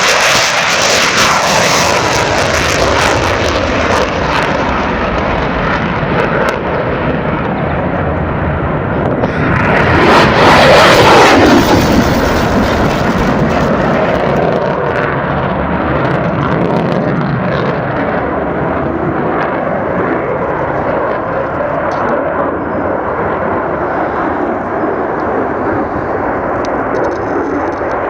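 F-35A Lightning II's Pratt & Whitney F135 jet engine at takeoff power: a loud, continuous jet noise that swells to its loudest about ten seconds in as the jet passes, with a clearly falling pitch, then carries on as a steady rumble while it climbs away.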